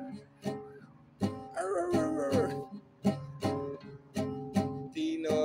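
Acoustic guitar strummed in steady chords, about two a second. A man's voice sings a short line about a second and a half in and comes in again near the end.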